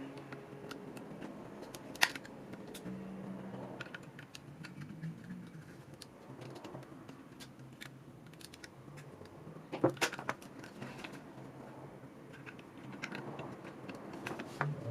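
Scattered light clicks and taps of small hard parts being handled, with two sharper knocks, one about two seconds in and one about ten seconds in.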